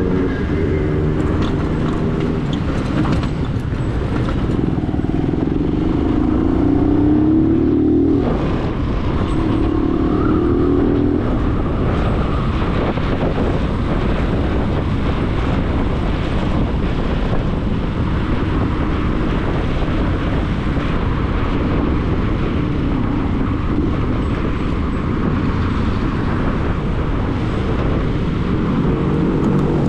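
Motor vehicle engine pulling away, its pitch rising for a few seconds, dropping suddenly at a gear change about 8 seconds in, rising briefly again, then running on steadily under constant road noise.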